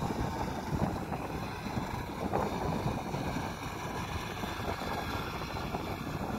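Ski-Doo Grand Touring snowmobile engine running steadily as the sled approaches, with wind buffeting the microphone.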